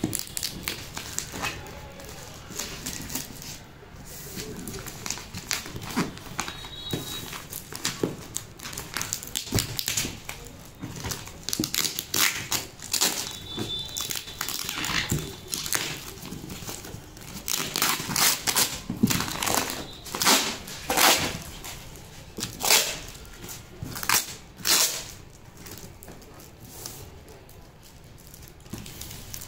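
Packing tape and a plastic label sleeve being peeled and ripped off a taped cardboard parcel: repeated rasping tears and crinkles, densest through the middle of the stretch.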